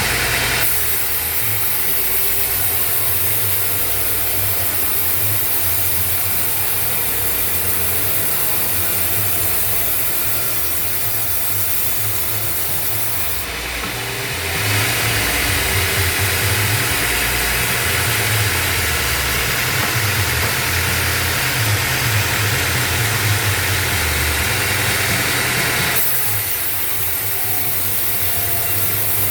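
Band sawmill blade cutting through acacia wood with a steady high hiss over the low running of the mill's drive. The cutting hiss dips briefly about halfway and stops a few seconds before the end, leaving only the drive running.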